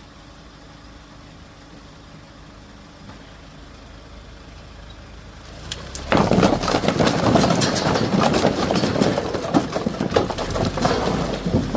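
A low steady engine hum. About six seconds in, it gives way to a loud, continuous clatter of split firewood logs tumbling and knocking against each other.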